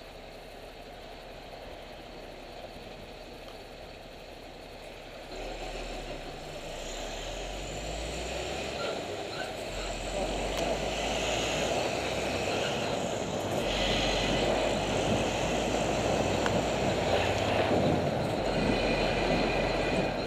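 Street traffic with vehicle engines running, the engine noise building from about five seconds in and louder through the second half, including a diesel taxi engine working under load.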